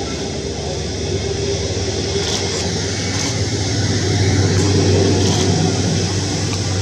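Distant jet engines of a taxiing Republic of Korea Air Force KC-330 (Airbus A330 MRTT), a steady low rumble that swells a little past the middle.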